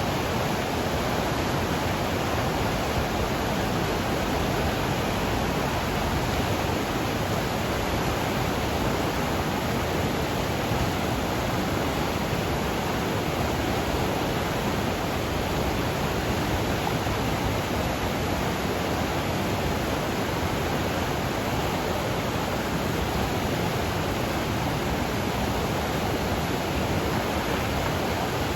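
Flooded mountain river rushing, swollen with runoff: a steady, unbroken wash of fast water.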